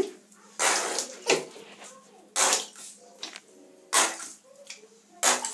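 Orange bathwater, mixed with tomato soup and spaghetti hoops, splashing and sloshing in a bath in about five short separate bursts.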